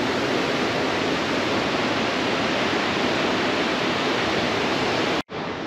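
Steady rushing noise of surf breaking on rocks below, cutting off abruptly near the end.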